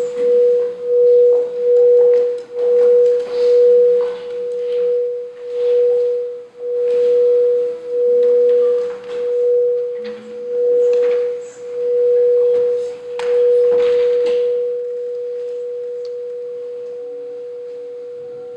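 Crystal singing bowl played continuously: one steady mid tone swelling and fading about once a second. About fourteen seconds in the playing stops and the tone rings on, slowly dying away.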